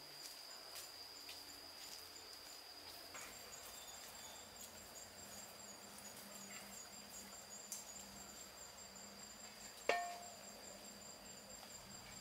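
Faint, steady high-pitched insect trilling, joined by a second pulsing trill about three seconds in, with a few light clicks. About ten seconds in comes one sharp metallic clink with a short ring.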